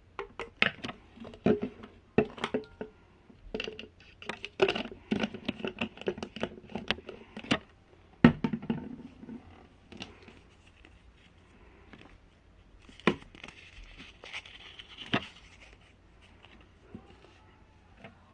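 Small objects being handled close up: an irregular run of clicks and taps with some rustling, densest in the first half, with the sharpest knock about eight seconds in.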